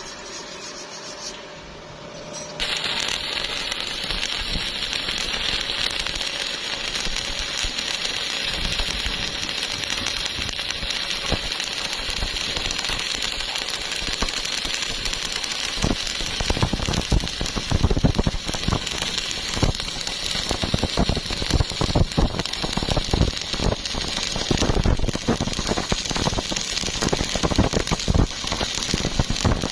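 Electric arc welding on rusty steel plate: the arc strikes about two and a half seconds in and burns with a steady crackling hiss, turning rougher and more popping in the second half.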